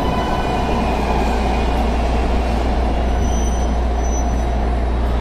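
MARTA subway train slowing as it pulls into the station, with a steady low rumble throughout. A high whine dies away over the first couple of seconds as the train comes to a stop.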